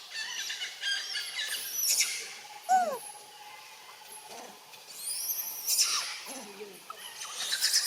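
Monkeys squealing: bursts of high-pitched, rising and falling screeches in three clusters, with one lower call that arcs down in pitch about three seconds in.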